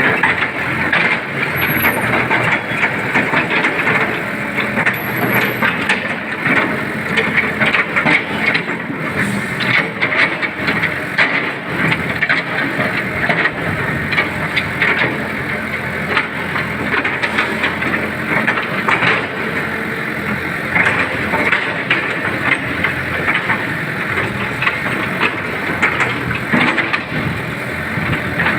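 Caterpillar 313B CR excavator at work: its diesel engine running steadily, with frequent short clanks and rattles over it.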